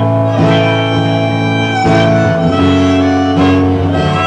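Acoustic guitar strummed live, each chord left to ring, with a new strum about every second and a half.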